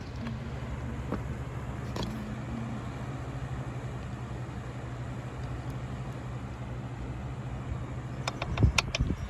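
Aero Speed box fan running steadily, a low hum with the rush of moving air. A quick cluster of clicks and knocks comes near the end.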